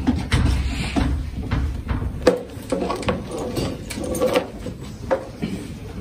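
A saddle being rocked and handled on a horse's back: irregular knocks and creaks of leather and tack, with a low rumble in the first two seconds.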